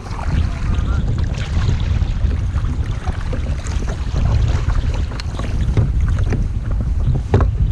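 Strong wind buffeting the microphone in a low, steady rumble, with irregular splashes of water as a sea kayak is paddled into a headwind.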